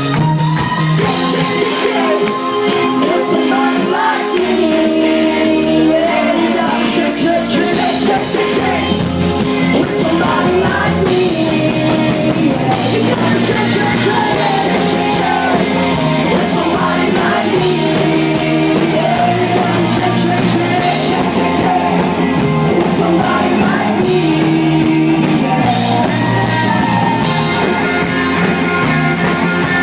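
Live rock band playing an amplified song with a lead vocal sung over guitars and drums, loud and continuous.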